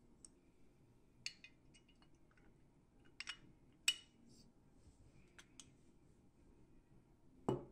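Scattered light clicks and clinks of small hard toy parts being handled and set down on a work surface, the sharpest about four seconds in, with a duller knock near the end.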